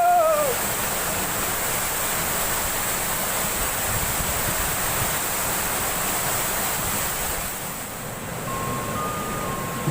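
Steady rush of flowing river water, an even hiss with no break. A voice trails off at the very start, and soft music tones come in near the end.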